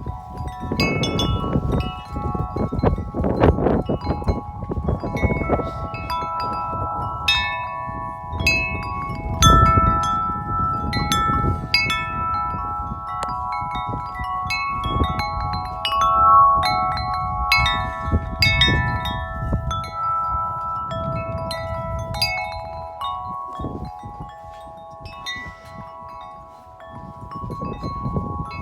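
Corinthian Bells 36-inch wind chime ringing in strong, gusty wind: its tubes are struck over and over, so several tones overlap and hang on. Low wind rumble on the microphone runs underneath and eases a little near the end.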